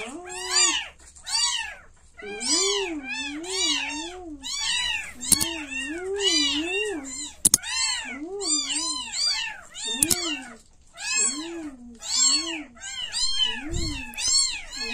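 Week-old kittens mewing continuously: a rapid string of short, high, rising-and-falling cries, two to three a second and sometimes overlapping, as several kittens call at once. A few brief clicks cut through the mewing.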